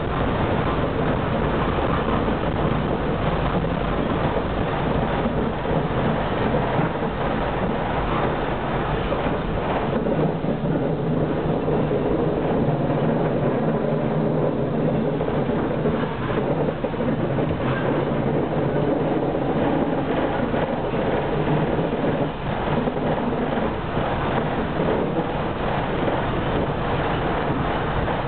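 Tram running along street track, heard from inside the car: a steady, continuous noise of wheels on rails and running gear.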